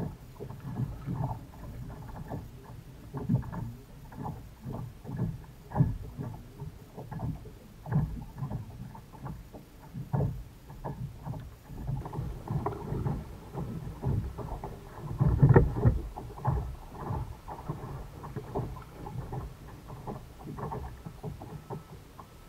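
Small waves slapping and knocking against the hull of a plastic sit-on-top kayak as it drifts, irregular low thuds a few times a second, loudest in a cluster about two-thirds of the way through.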